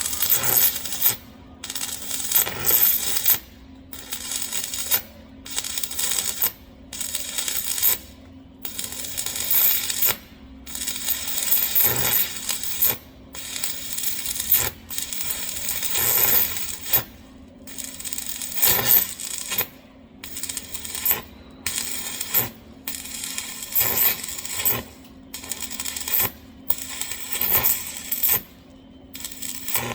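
Arc welding on a wide-gap tee joint: the arc crackles and sizzles in runs of about a second, breaking off briefly and restarting over and over, with a steady low hum underneath.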